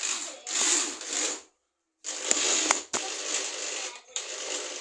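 Electric drill running in several bursts with a harsh, noisy, grinding sound, cutting out completely for about half a second after a second and a half.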